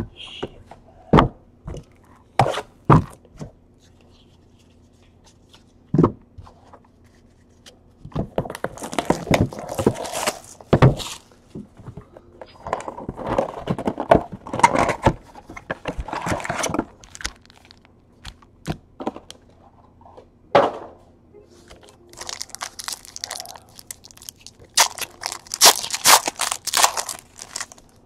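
Sharp knocks of a cardboard hobby box being handled. Then two long spells of crinkling and tearing as foil trading-card packs are ripped open.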